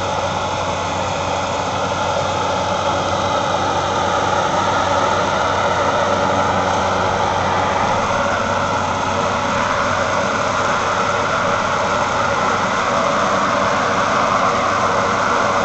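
JFS100-13 small gas-turbine engine driving the propeller of a homebuilt light aircraft, running steadily while the plane taxis. It grows a little louder about four seconds in.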